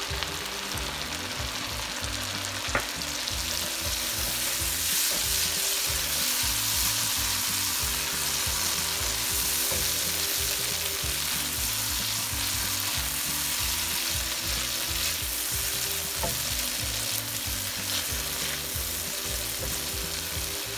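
Blended onion and pistachio paste sizzling in hot oil in a nonstick frying pan as a silicone spatula stirs it. The sizzle grows louder a few seconds in, with one sharp click about three seconds in.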